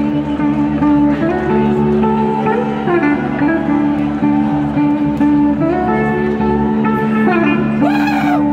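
Live band playing an instrumental jam: an electric slide guitar plays a lead line of stepped and gliding notes over a steady low drone. Near the end, one note swoops up and back down.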